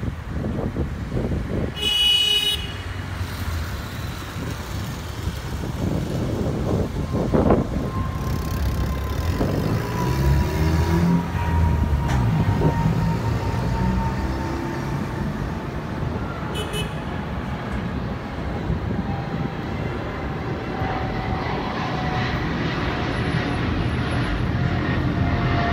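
Boeing 777-200ER jet climbing out overhead: a low engine rumble with a thin whine that falls slowly in pitch as the aircraft nears and passes, mixed with street traffic noise. A short horn-like toot sounds about two seconds in.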